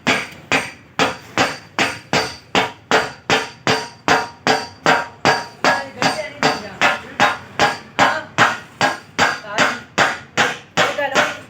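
Hammer blows on a car's body panel, struck evenly about three times a second, as the dented sheet metal is beaten out.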